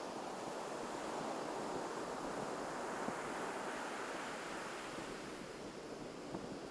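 Ocean surf washing onto a beach, a steady rushing wash that swells slightly and eases off, with some wind on the microphone.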